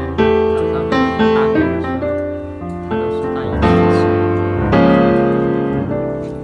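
Background piano music: a slow melody of single struck notes and chords, each fading away after it is played.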